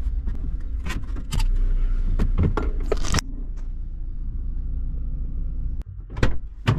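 A car driving slowly, heard from inside the cabin as a steady low engine and road rumble with scattered clicks and knocks. After a sudden cut near the end, keys jangle with a few sharp clicks.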